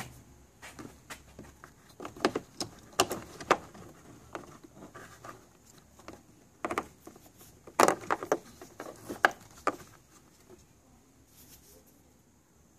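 Irregular clicks, knocks and rattles of hard plastic being handled: a hand working a capped wiring connector out from behind the scooter's plastic body panels. The clicks come in clusters and die away over the last couple of seconds.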